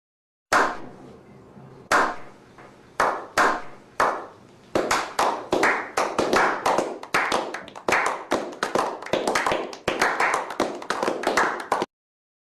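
A series of sharp claps or strikes, each ringing out briefly: a few spaced about a second apart, then a quick run of about three to four a second, starting and stopping abruptly.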